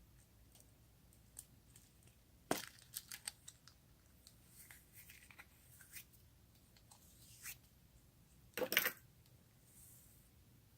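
Slime being worked by hand, giving scattered sharp clicks and crackling pops: a quick run of them a few seconds in, lighter ticks after, and the loudest crackle near the end.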